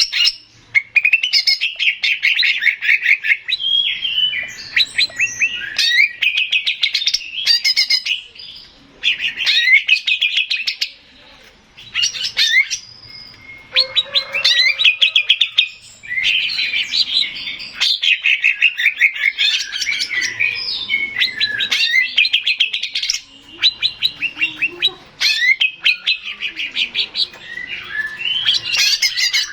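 Male cucak ijo (greater green leafbird) singing a loud, fast song of rapid trills and quick whistled phrases in bursts, with brief pauses between them.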